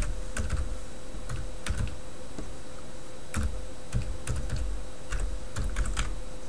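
Typing on a computer keyboard: irregular keystrokes, some in quick clusters, entering a network share path, with a steady hum underneath.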